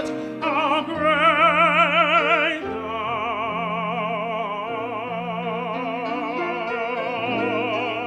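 Operatic tenor singing long held notes with a wide, even vibrato over piano accompaniment. There is a brief break about half a second in, and the loudest phrase comes between about one and two and a half seconds.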